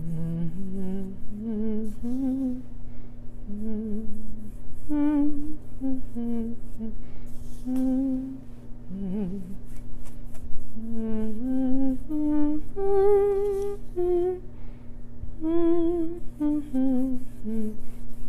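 A woman humming a slow melody, one note gliding into the next, without words.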